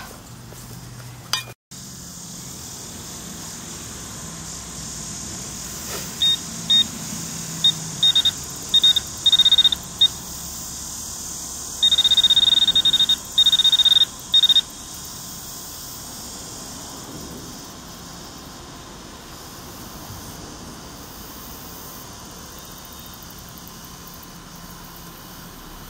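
Handheld metal-detecting pinpointer probing a dug hole: a single high-pitched beep in short pulses, then a near-continuous tone for a couple of seconds about halfway through as its tip closes on a metal target, a coin. It then falls silent.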